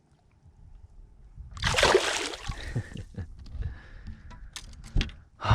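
A loud splash of water about two seconds in, followed by scattered light knocks and clicks.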